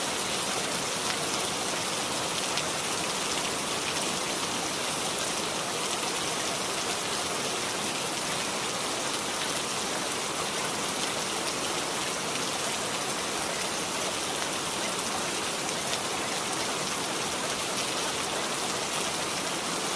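Steady rain sound, an even hiss with no breaks or changes.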